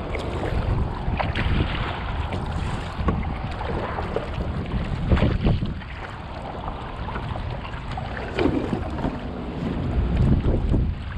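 Water sloshing and splashing against a kayak's bow right at the microphone, with irregular splashes, the loudest about five seconds in. Wind buffets the microphone throughout.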